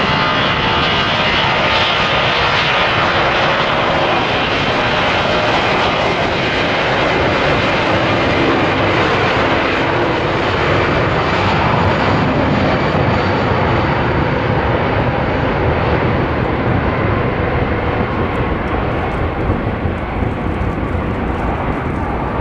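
Airbus A340's four turbofan engines at take-off thrust during the take-off roll, a loud steady jet rumble and hiss with faint whining tones. Over the last several seconds the sound grows duller and a little quieter as the aircraft moves away.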